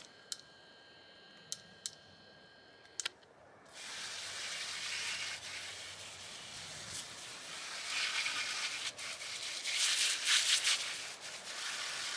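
Garden hose spraying water onto an outdoor dryer vent cover to wash out the lint: a steady hiss that starts about four seconds in and gets louder from about eight seconds. Before it come a few light clicks.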